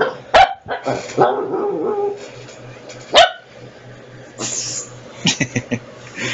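Small Shih Tzu-type dog barking in play: sharp single barks about half a second and three seconds in, the later one the loudest, then a quick run of short yaps near the end.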